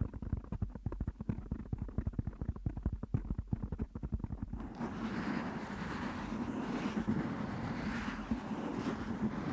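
A microphone being scratched and rubbed close up. For about the first four and a half seconds it is a fast run of low taps and thuds, then it changes to a continuous, brighter scratching noise.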